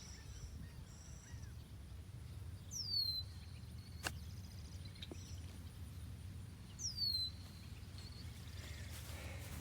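A bird repeats a short high whistle that slides down in pitch, twice, about four seconds apart, over a low steady outdoor rumble. A single sharp click comes a little past the middle.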